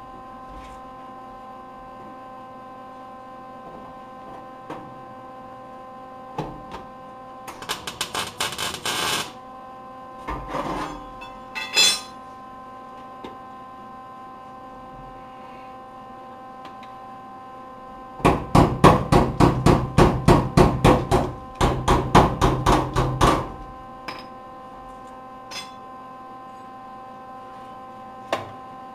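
Hammer blows on a sheet-steel truck body panel, in quick runs: a short burst of rapid strikes, a few single blows, then a longer run of about twenty blows at some five a second, pausing once briefly. A steady electrical hum runs underneath.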